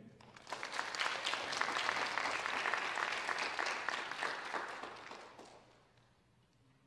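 Applause: many people clapping, starting about half a second in and dying away after about five seconds.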